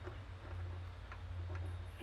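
A few light metallic clicks as Powertrax locker parts, alignment pins and springs, are handled and fitted into the differential, over a steady low hum.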